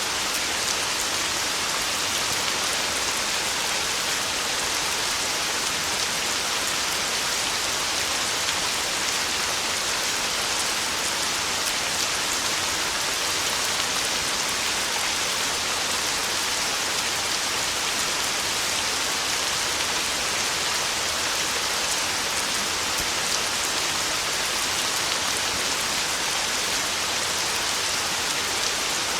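Heavy rain falling steadily on a tin roof, an even, unbroken hiss.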